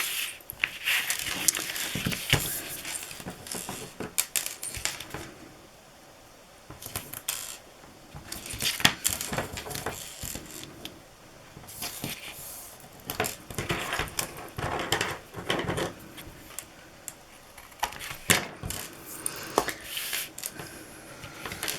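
Handling noises at a craft table: cardstock and tape being handled and rustled, with scattered clicks and clatter of small tools being picked up and put down, in bursts with quieter pauses.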